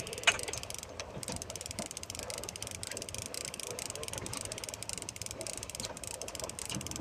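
Sportfishing boat under way: a steady rush of engine, water and wind on the microphone, with a fast run of light ticks from a fishing reel as a hooked mahi is fought. One sharp click stands out about a third of a second in.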